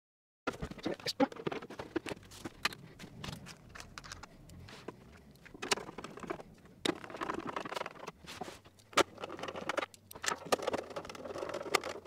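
Handling noise from reassembling the plastic case of a Commodore 1084S CRT monitor: scattered clicks and knocks over rustling, starting about half a second in.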